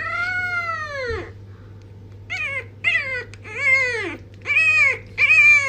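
A pet animal's pitched, arched cries: one long drawn-out call, then five shorter calls in quick succession, the last ones the loudest.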